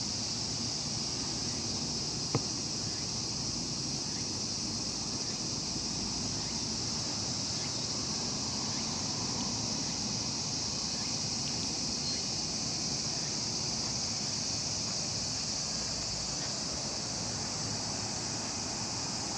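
A steady, high insect chorus drones without a break. One sharp click comes about two seconds in.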